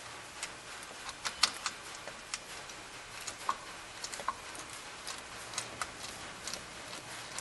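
Irregular light metallic clicks and taps from hand work on the pulleys, as the idler pulley's bolt is fitted and started by hand.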